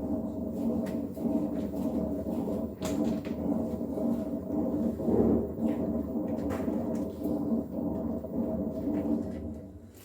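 LG direct-drive washing machine in its spin cycle, running with a loud, steady hum and a few sharp knocks. The noise drops away near the end.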